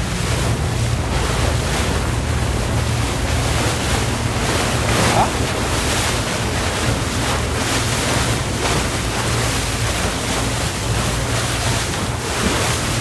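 Speedboat under way: its engine running steadily beneath the rush of water, with wind buffeting the microphone.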